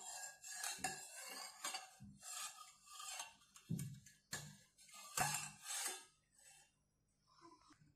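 Steel spoon scraping and rubbing against a pan as heating milk is stirred, about two strokes a second; the milk is stirred without pause so that no skin forms while it thickens. The stirring stops about six seconds in.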